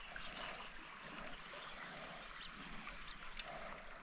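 Creek water trickling and flowing steadily, a low continuous rush with small irregular gurgles.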